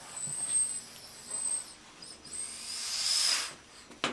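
Motorcycle tyre bead being pressed off the rim with a tire changer's bead breaker: high squealing of rubber against the rim, swelling to a louder hiss about three seconds in.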